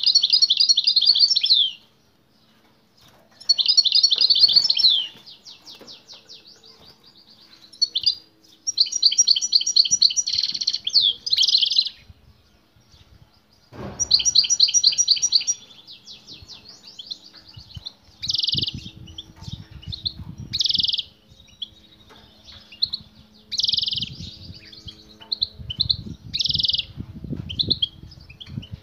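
Male European goldfinch singing hard in repeated bursts of fast, twittering trills and chirps, each a second or two long with short pauses between; the song is given in response to a female singing nearby.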